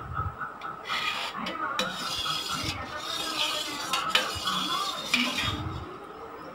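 Steel spoon stirring and scraping against the inside of a steel vessel of cooked mango liquid, in a series of scrapes with a few light clinks.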